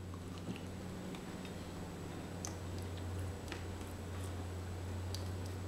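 Faint eating sounds as a peanut butter muffin is bitten, chewed and pulled apart by hand: a few scattered light clicks over a steady low hum.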